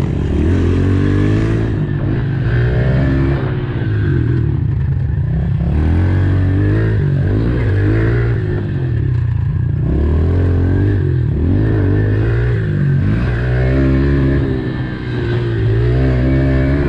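Dirt bike engine being ridden hard, revving up and dropping back over and over, its pitch rising and falling about every one to two seconds.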